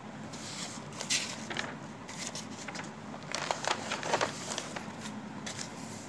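Paper rustling as a school textbook and notebook are handled and their pages shifted: several short scratchy rustles, clustered about halfway through.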